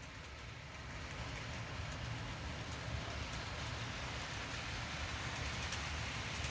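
HO scale model train running on its track, pulled by Bachmann F9 A and B diesel units: a steady hum from the DC motors with rolling wheel noise, growing gradually louder.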